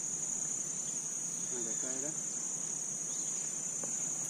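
Steady, high-pitched insect chorus, an unbroken shrill drone from the marshy lagoon edge at dusk.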